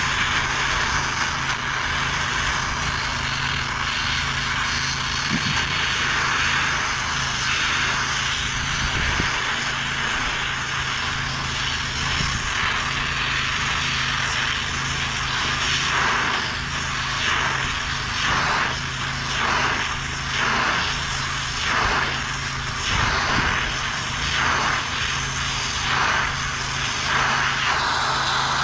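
Multiplaz 3500 water-fed plasma torch running steadily, an even hiss over a low hum, as it heats cast iron for brass brazing. In the second half the hiss swells and dips about once a second.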